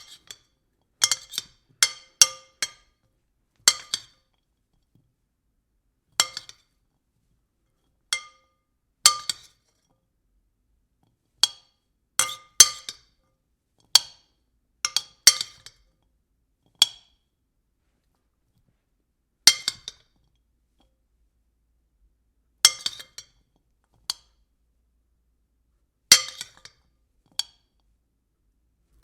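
A spoon tapping against a bowl: sharp clinks that ring briefly, struck one at a time or in quick runs of two to four, with silent pauses between.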